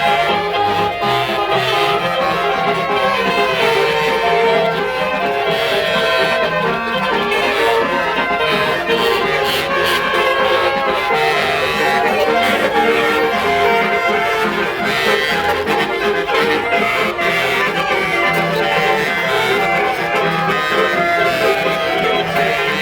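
Music: a continuous instrumental track with a melody over a repeating bass line, steady in loudness throughout.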